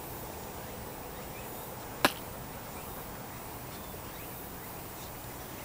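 Golden retriever puppy digging in dry sandy dirt, its paws scraping soil in a steady scratchy hiss, with a single sharp click about two seconds in.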